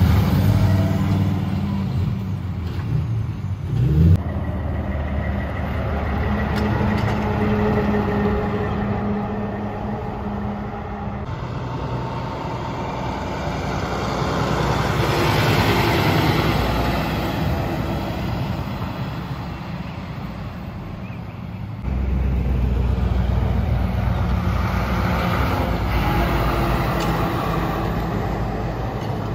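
Heavy diesel trucks driving past one after another: a car-hauler tractor-trailer, a dump truck and a lowboy trailer carrying a telehandler. The engines run and the tyres hum on the road. The sound changes abruptly a few times, with a brief loud knock about four seconds in.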